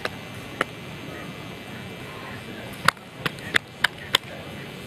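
Steady outdoor background noise with a few sharp clicks, then a quick run of five near the end, the last four evenly spaced about three a second.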